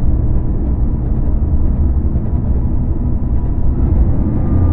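Dark ambient drone music: a dense, steady low rumble with faint thin tones held above it, one slightly higher tone appearing near the end.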